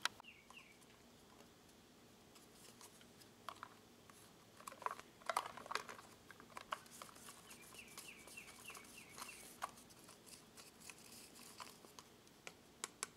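Wooden mixing stick mashing goat fecal pellets in a plastic cup, making faint, irregular scraping and tapping against the cup.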